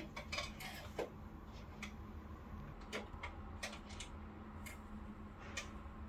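Irregular sharp clicks and clacks of small hard parts being handled while an air conditioner is taken apart for repair, about nine at uneven intervals.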